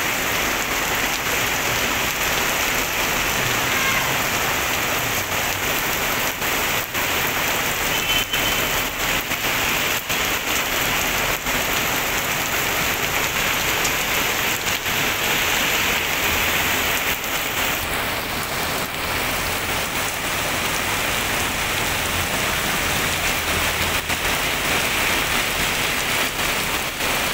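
Heavy rain pouring steadily onto a wet paved street and brick pavers.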